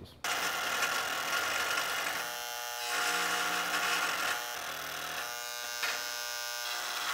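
Corded handheld rotary tool buzzing at high speed as its bit engraves a welder ID number into a steel test plate. The buzz starts just after the beginning and swells and eases as the bit works across the metal.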